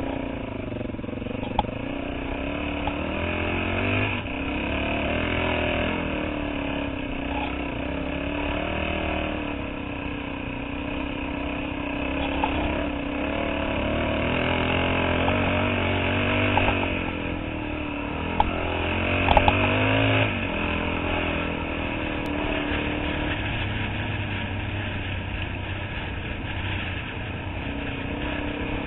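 Dirt bike engine running under way on a gravel track, the revs rising and falling with the throttle. A few sharp knocks stand out, several of them close together about two-thirds of the way through.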